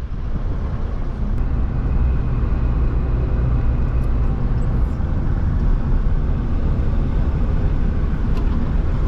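Car driving on a paved road, heard from inside the cabin: a steady low rumble of engine and road noise.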